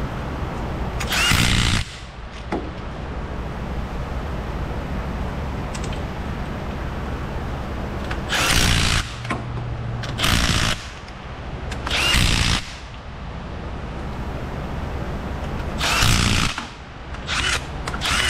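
Cordless right-angle power tool running in about seven short bursts, driving the bolts that fasten the CV axle flange to the front differential. A steady low hum sits underneath.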